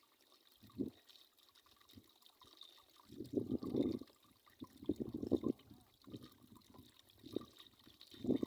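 Water splashing and sloshing in irregular bursts, the loudest a second-long spell about three seconds in and another about five seconds in, with shorter splashes between.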